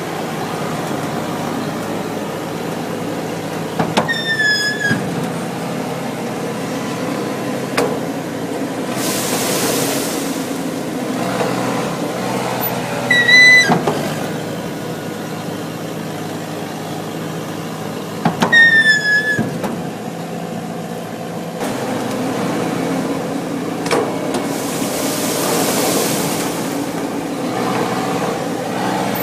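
Olive harvester running steadily as it works along a row of trees, with a short high squeal every several seconds and two spells of hissing.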